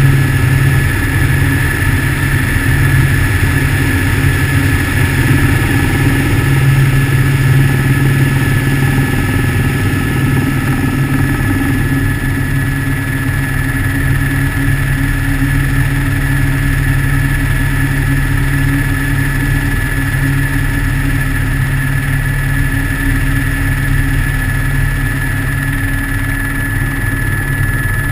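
Helicopter in flight: a steady drone of rotor and turbine engine, with a constant high whine over it.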